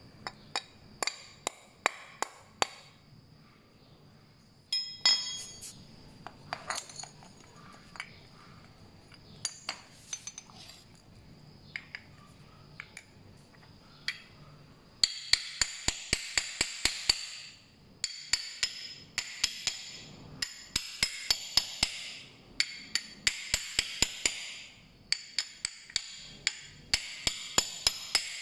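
Metal-on-metal hammering: a wrench strikes the end of a screwdriver held against an angle grinder's gear-head part, about three ringing blows a second in short runs. Before that, through the first half, there are scattered clicks and knocks as the metal parts are handled.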